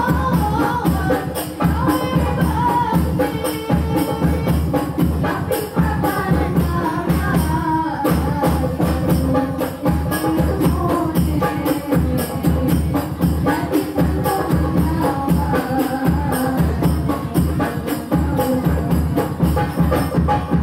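Hadroh music: women's voices singing into microphones over rebana frame drums beating a steady rhythm.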